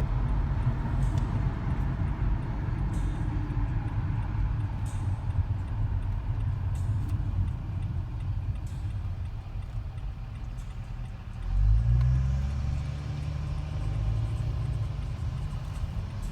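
Road and engine noise inside a car cruising on the highway: a steady low rumble, with a brief louder, rising rumble about two-thirds of the way through.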